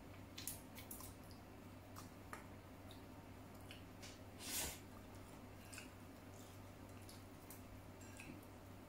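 Faint close-up eating sounds: soft chewing and wet mouth clicks, with one louder, brief noisy sound about halfway through.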